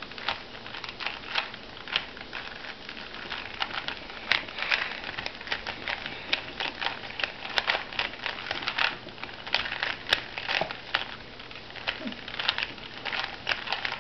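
Rubik's Cubes being twisted fast, their plastic layers clicking and clacking in quick irregular runs with short pauses.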